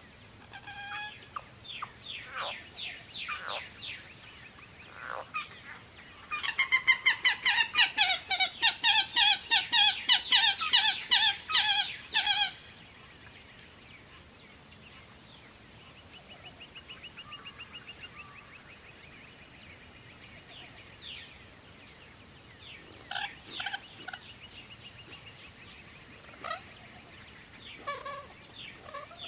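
Crickets trilling steadily in a continuous high-pitched chorus, with birds calling over it. About six seconds in comes a loud, rapid run of repeated falling notes lasting about six seconds, the loudest sound here; a few shorter, scattered calls follow later.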